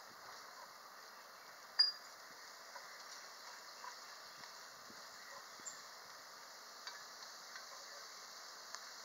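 A utensil stirring hash browns, bacon and onion frying in a cast-iron Dutch oven, with a sharp metal clink against the pot about two seconds in and lighter taps and scrapes over a faint sizzle.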